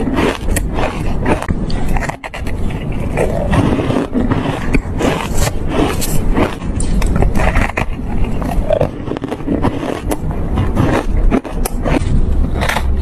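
Ice being bitten and crunched close to the microphone: a dense, continuous run of sharp crunches and cracks as the ice breaks between the teeth.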